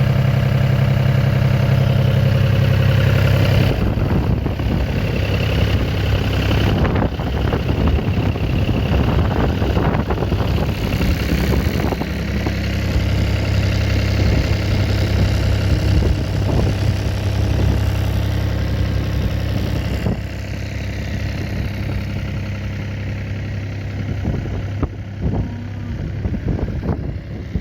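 An engine running steadily at idle, a low hum that shifts slightly about four seconds in.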